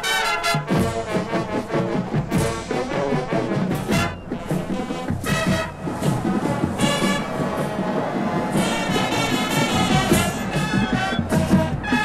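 Brass-heavy music with trumpets and trombones playing over a steady beat.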